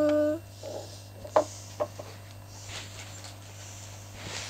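A held sung note breaks off a moment in; then a few light clicks and taps as a hand-held wooden model ship is handled against an aquarium's glass, over a steady low hum.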